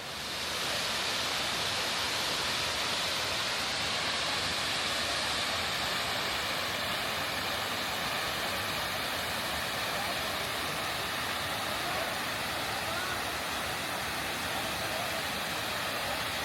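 Steady rush of falling mountain water, an even noise that swells up within the first second and then holds.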